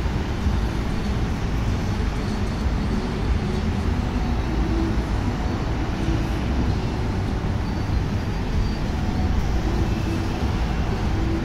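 Steady hum of road traffic from a busy city intersection, many cars blending into one even low rumble without any single vehicle standing out.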